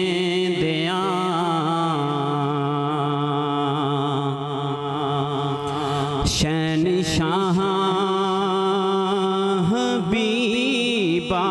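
A man singing a Punjabi naat into a microphone, holding long, wavering, drawn-out notes between the lines of the verse.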